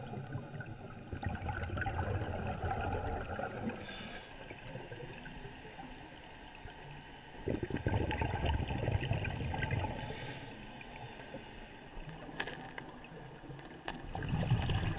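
Water movement picked up by an underwater camera: a low rumbling swash that swells and fades, louder for a few seconds past the middle, with short hissing bursts about every six seconds.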